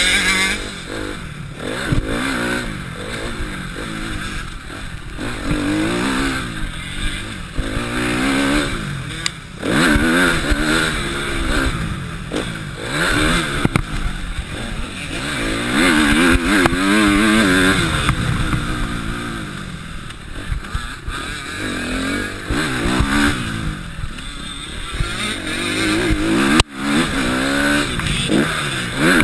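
Motocross bike engine heard from on board, revving hard and easing off again and again as the rider accelerates, shifts and brakes around the track. The sound drops out for an instant near the end.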